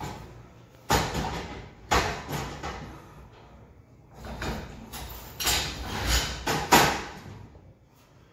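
Aluminium scaffold work platform being slid and set onto steel scaffold frames. Sharp metal clanks come about one and two seconds in, then a run of scraping and knocking, with the loudest clank near the end.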